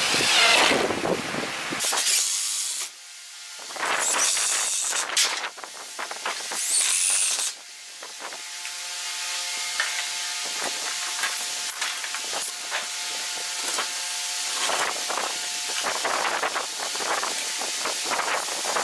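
Makita 18V cordless impact driver driving screws into a wooden fence, in three short runs over the first several seconds. After that comes a steady hiss with light clicks and knocks.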